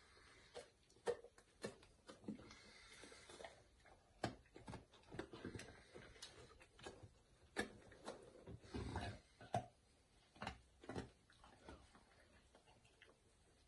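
Basset hound nosing at a wire basket on a wooden shelf: faint, irregular small clicks and light knocks, with a cluster of duller thumps about nine seconds in.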